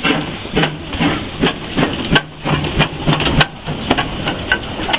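Small steam tank locomotive moving slowly, its exhaust chuffing in a steady beat of roughly two to three chuffs a second over a low steady hum.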